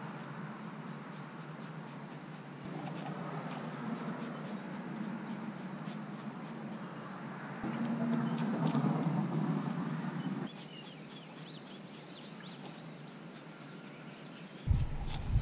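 Knife blade scraping the slime off a scaleless catfish's skin on a concrete jetty surface, a run of scratchy strokes with fine ticks, louder for a few seconds in the middle. Near the end a sudden loud low rumble sets in.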